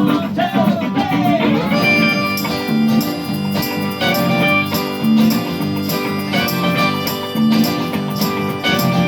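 A band playing a song's instrumental introduction live, guitar-led, with sustained chords over a steady beat and a few sliding notes in the first couple of seconds.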